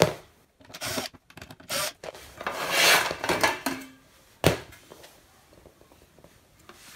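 Sheet-metal cover of a step-down transformer's case being pulled off, with a few light clicks and then about a second of metal scraping on metal. A single sharp knock follows about four and a half seconds in.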